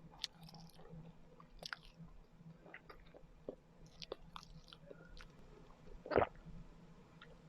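A person chewing Filipino rice cakes (kakanin) close to the microphone: soft, irregular mouth clicks and smacks, with one louder smack about six seconds in.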